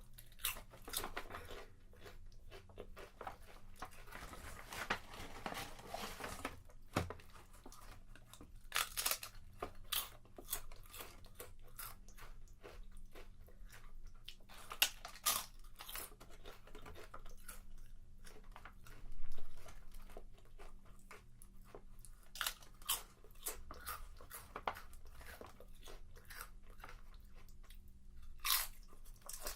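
A person chewing potato chips, with many irregular crunches and bites.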